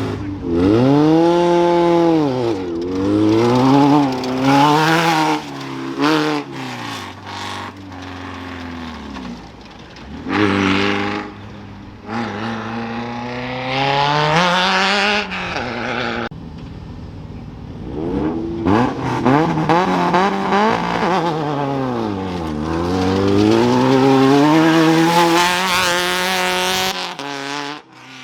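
Off-road race vehicles' engines revving hard as they launch from the start line one after another. The pitch climbs and falls several times as each vehicle accelerates through the gears and pulls away.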